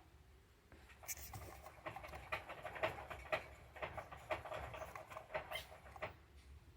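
Pet hamster scratching and rustling, a quick uneven run of small scratches and taps.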